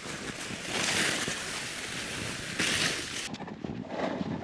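Boots crunching and scuffing through snow as hikers walk, with two longer bursts of hiss in the first three seconds, then irregular short crunches.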